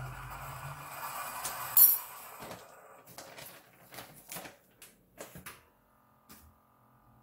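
Food packaging being handled on a kitchen counter: rustling for about two seconds with a sharp click, the loudest sound, near the end of it, then a scattering of light taps and clicks.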